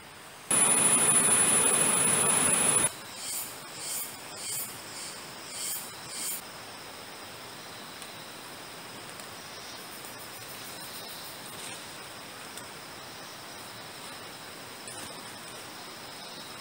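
Forest insects calling: a loud buzz for about two seconds, then six short pulsing calls, then a steady high-pitched insect drone.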